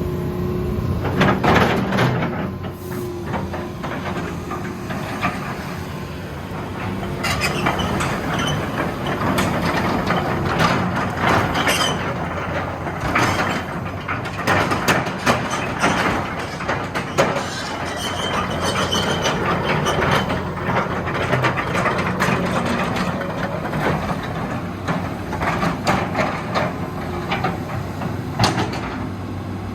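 Hitachi EX210K-5 excavator's Isuzu 6BG1 diesel engine running steadily, with repeated metallic clanks and rattles from the machine working and a level that rises and falls.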